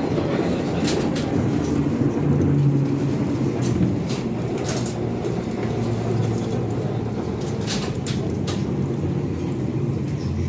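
Interior ride noise of a ZiU-682GM1 trolleybus: a steady low hum of the running vehicle, with short rattles and knocks from the body scattered through it.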